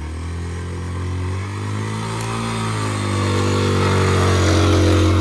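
Motorcycle engine working under load on a muddy track, its revs dipping and then rising, growing louder toward the end.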